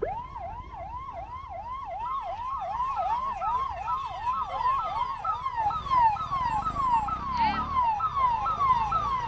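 Emergency-vehicle siren in a fast yelp, rising and falling about three times a second, then changing to a slower falling sweep about two-thirds of the way in, over traffic noise.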